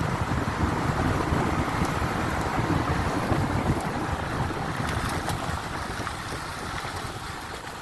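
Road and wind noise from a Subaru Impreza driving on a mountain forest road: a steady low rumble of tyres and wind that slowly dies down.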